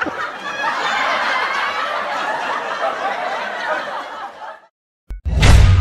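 Men laughing, cut off suddenly after a few seconds. After a brief silence a loud sound effect with a deep, lingering boom starts near the end.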